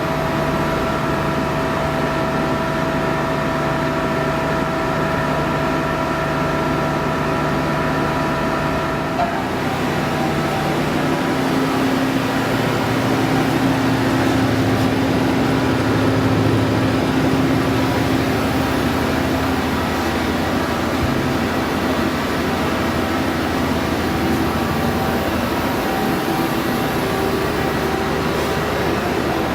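Mighty Viper VT-30GL CNC lathe running under power: a steady machine whine with several held tones that stops about nine seconds in. It gives way to a lower, steady hum with a deeper tone that swells and fades over the next several seconds.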